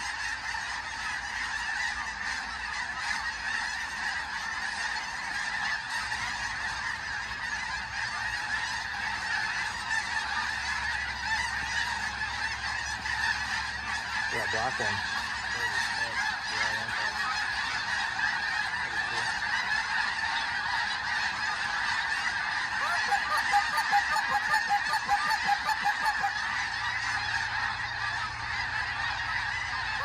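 A huge flock of snow geese calling as it circles overhead, a continuous din of countless overlapping honks. It grows louder and more pulsing for the last several seconds.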